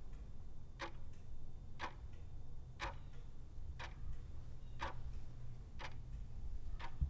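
Clock ticking steadily about once a second over a low hum.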